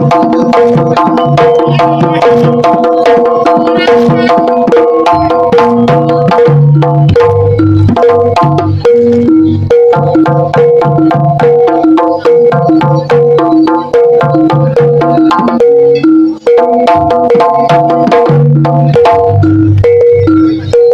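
Jaranan gamelan accompaniment: kendang hand drums beating a fast, dense rhythm over repeating pitched notes from the metal gong-chime and metallophone instruments.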